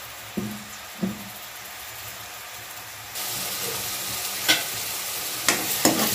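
Chopped onions sizzling in hot oil in a kadai, with a spatula scraping through them and knocking against the pan. The sizzle jumps louder about halfway through, and a few sharp spatula knocks come near the end.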